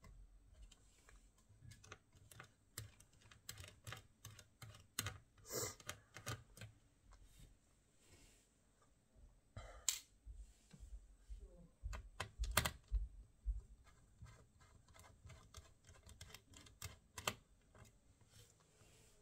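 Irregular light clicks and taps of hands working on a laptop, with a few louder knocks scattered through.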